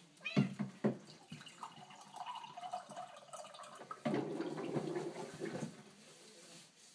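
Water bubbling and gurgling in a plastic water-cooler bottle as air bubbles rise through the water, with a louder spell of gurgling a little past the middle. Two sharp knocks come in the first second.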